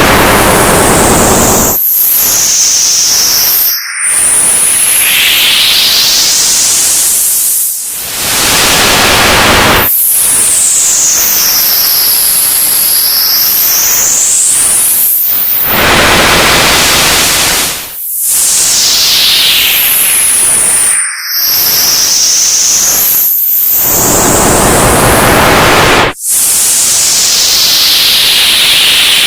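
Old analog television static: a loud, steady white-noise hiss with whistling tones that sweep up and down through it. Brief dropouts break it every few seconds.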